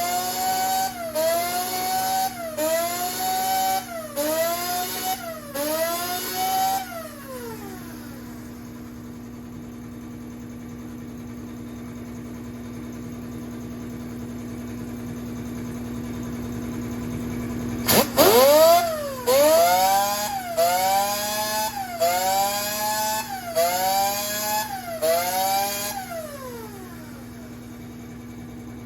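File strokes on a chainsaw chain, about one a second, each with a ringing, rising screech of file on steel, in two runs broken by a pause of about ten seconds. Under them an air compressor hums steadily, growing louder during the pause. A single sharp crack comes just before the second run of strokes.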